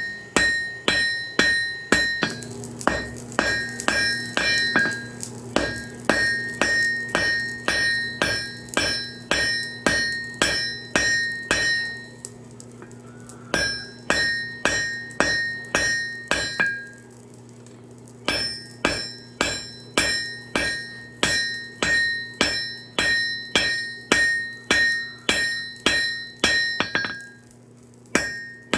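Hand hammer striking hot steel on an anvil, forging a railroad spike: steady blows about two a second, each with a clear ringing tone, in runs broken by short pauses. A steady low hum runs underneath from about two seconds in.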